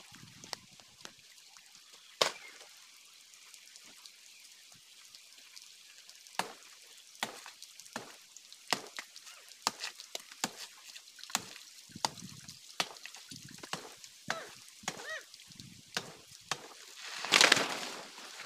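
Irregular sharp knocks and snaps as a man works at a banana plant's trunk by hand, sparse at first and coming faster after the middle, with a louder noisy burst lasting about a second near the end.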